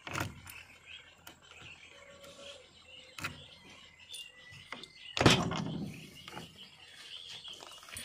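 Cab door of a JCB 3DX backhoe being unlocked and opened, with sharp clicks of the key and lock, then one loud clunk of the latch releasing about five seconds in.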